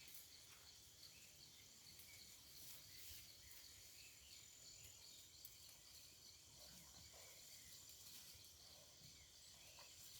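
Faint outdoor ambience with insects chirring steadily in a high, pulsing pattern.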